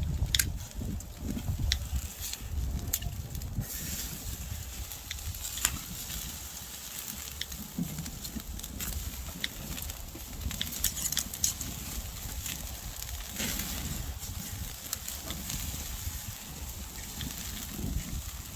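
Open wood fire crackling with scattered sharp pops, pork sizzling as it grills over it, over a steady low rumble.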